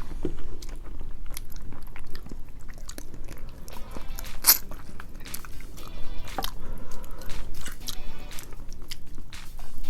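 Close-up eating sounds of roasted chicken: biting and chewing with sharp, crisp crunches and mouth clicks, the loudest about four and a half seconds in and again near six and a half. Background music plays underneath.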